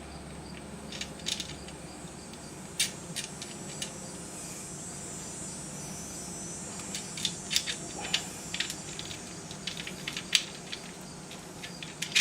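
Small metal clicks and taps of a washer, spring washer and nut being fitted onto a bolt and threaded on by hand, coming irregularly, over a faint steady high-pitched whine.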